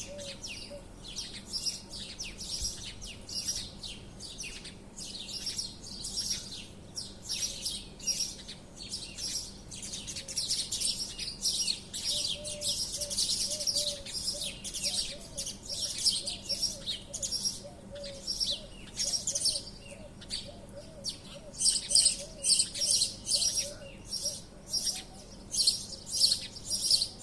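A flock of small birds chirping and twittering, many overlapping high short chirps in a continuous chorus. It grows busier and louder after about twenty seconds.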